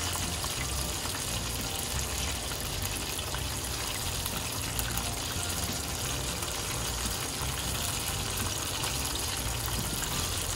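Chicken karaage pieces deep-frying in a pot of oil: a steady, light sizzle.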